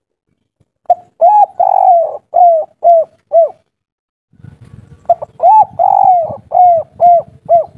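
Spotted dove (derkuku) cooing two phrases about four seconds apart. Each phrase is a short note and two longer arched coos, then three short 'kuk' notes: the kuk-3 song type. A low rumble comes in underneath between the two phrases.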